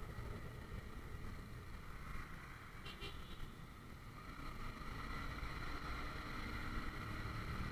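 A Honda CBR150R's single-cylinder engine running as the motorcycle rides through traffic, mixed with steady wind noise on the bike-mounted camera's microphone. A brief high-pitched chirp comes about three seconds in.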